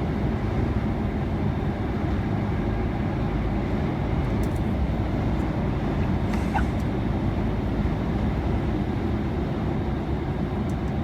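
Steady engine drone and road noise heard inside a lorry cab cruising along a motorway, with a low hum running under it.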